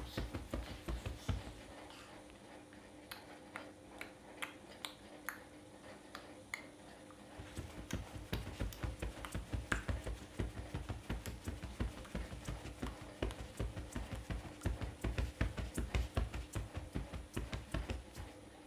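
A baby playing on its own, tapping and knocking on things: scattered taps at first, then rapid, irregular thumping from about eight seconds in, over a faint steady hum.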